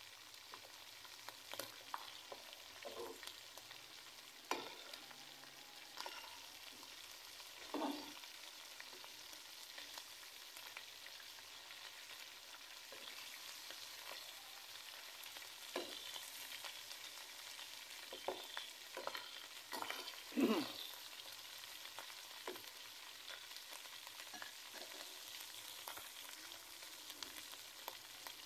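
Marinated chicken pieces shallow-frying in hot oil in a metal pan: a steady sizzle, broken now and then by sharp scrapes and clacks of a slotted metal spatula turning the pieces, the loudest about twenty seconds in.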